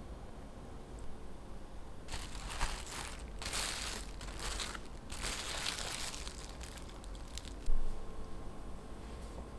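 Crinkling, rustling handling noise in several bursts from about two to six and a half seconds in, followed by a single sharp knock, the loudest sound, about three-quarters of the way through.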